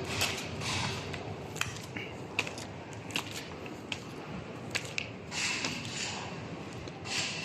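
Scattered sharp taps and clicks, with stretches of rustling, scraping noise about five to six seconds in.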